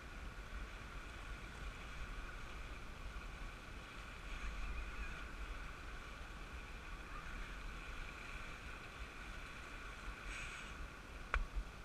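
Wind buffeting the microphone over the wash of sea waves against jetty rocks, with a single sharp click near the end.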